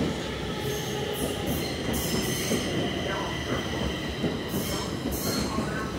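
Stockholm metro train running past along the platform on the near track: a steady rumble of wheels on rail with faint high tones above it.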